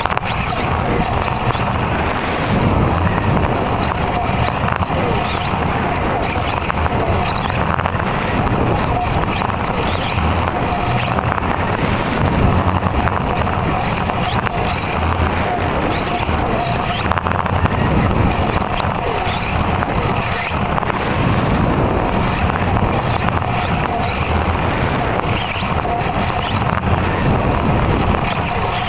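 Onboard sound of a radio-controlled touring car racing on a carpet track: a motor whine that rises in pitch again and again, every couple of seconds as the car accelerates, over a steady rumble and rattle of the chassis running on the carpet.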